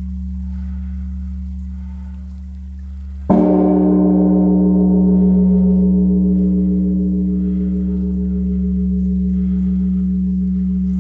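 Large Korean bronze Buddhist temple bell (beomjong) being rung for the evening service: the deep hum of the previous stroke is still sounding, then the bell is struck once about three seconds in and rings on in a long, slowly fading hum.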